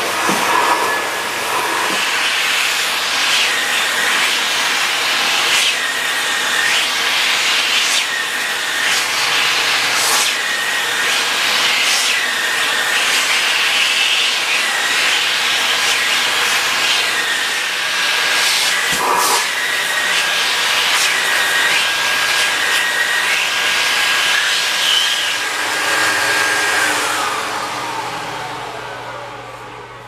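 Nilfisk GM80 canister vacuum cleaner running, a steady motor whine over loud rushing suction air that shifts as the hose nozzle is worked along furniture. Near the end the whine falls in pitch and fades as the motor is switched off and runs down.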